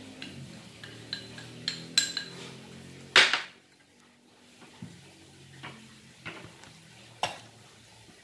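Glass bowls and a metal spoon clinking and knocking against each other and the tabletop: several short ringing clinks in the first two seconds, one louder clatter about three seconds in, then a few lighter knocks.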